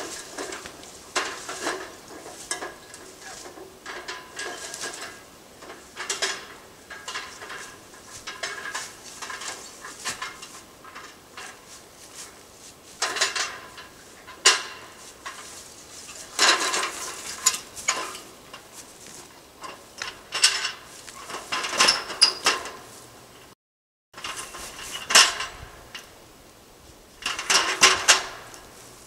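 Irregular clinking, knocking and scraping of hand tools and materials in short bursts, with a brief dropout to silence about three-quarters of the way through.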